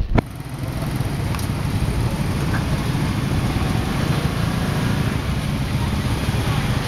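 Motorcycle engines running at low speed in slow, jammed street traffic, with a couple of sharp knocks right at the start.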